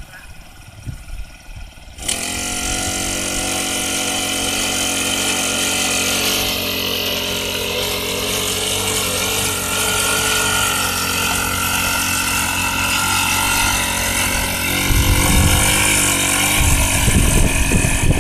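Small Honda engine on a rice-paddy power weeder starting up about two seconds in and then running steadily at a fairly even speed. A heavy low rumble joins it near the end.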